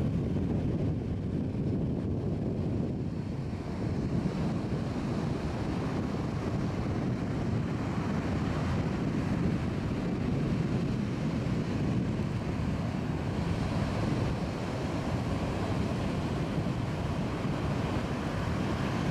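Ocean surf breaking and washing up on a sandy beach, with wind buffeting the microphone as a steady low rumble that grows a little louder about four seconds in.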